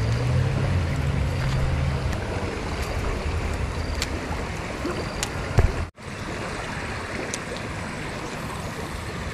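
Steady rushing of a flowing river, with a few faint clicks. The sound drops out sharply for a moment about six seconds in.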